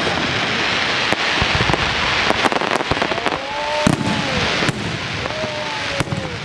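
Fireworks display: a dense crackle of bursting stars with a string of sharp bangs from shells exploding overhead. From about halfway through, a few drawn-out tones rise and fall over the crackle.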